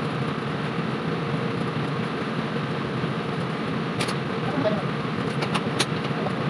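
Steady rumbling hum of commercial kitchen equipment, with a few sharp metallic clicks and taps about four seconds in and again toward the end, as tools knock against the stainless-steel wok range.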